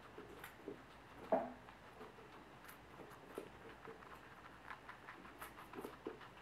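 Guinea pig eating from a plastic bowl: faint, irregular small clicks and crunches of chewing, with one louder knock about a second in.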